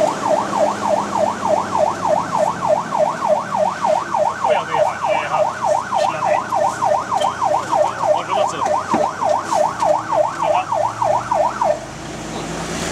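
A fire engine's electronic siren on a fast yelp, sweeping up and down about three and a half times a second over the Magirus Deutz's steady diesel engine hum, cut off suddenly near the end.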